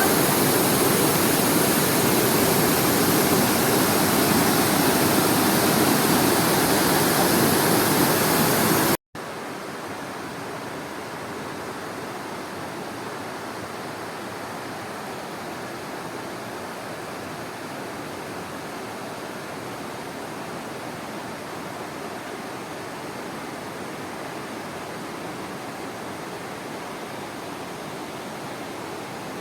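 Small waterfall, about five metres high, rushing steadily into its plunge pool. About nine seconds in, the sound breaks off for a moment and resumes as a softer, steady rush.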